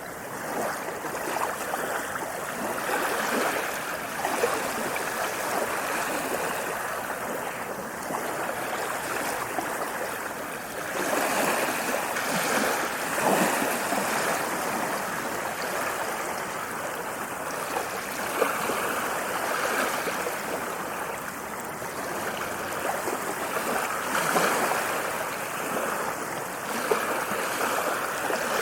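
Small waves splashing on a beach: a continuous wash of water that swells and eases every few seconds, with brief splashes in between.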